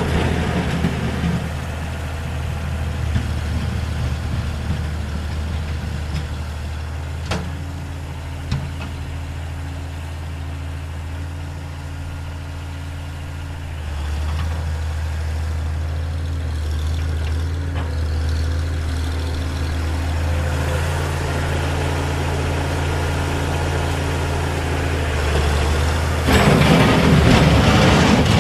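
Oliver 1650 diesel tractor's six-cylinder engine running steadily while pushing snow with its front-loader bucket, getting louder about halfway through. Near the end there is a loud scraping rush as the bucket pushes snow across the concrete close by.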